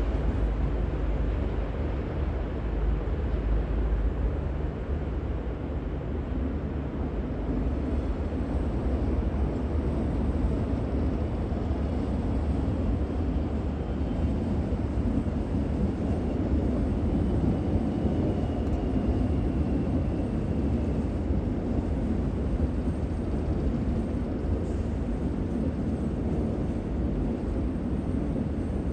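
Steady low rumble of a train running, with no horn sounding.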